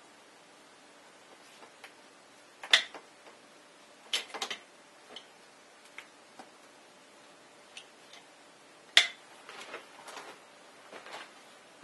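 Scattered sharp metallic clicks and clinks of a hand tool working a brass fitting on a PEX water line, the loudest about three seconds in and again about nine seconds in, with a quick cluster around four seconds.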